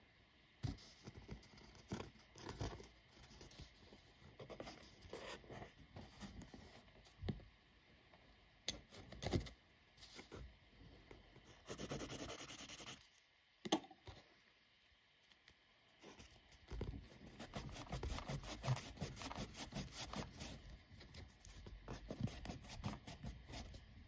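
Kneadable putty eraser rubbed over textured drawing paper: soft, irregular rubbing and scratching strokes, with one sharp click past the middle and faster, denser rubbing in the last third.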